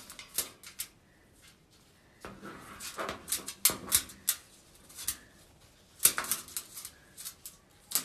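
A white-bellied caique moving about under a cloth cover in its cage: irregular scratching, rustling and sharp clicks in clusters, with short quiet gaps between them.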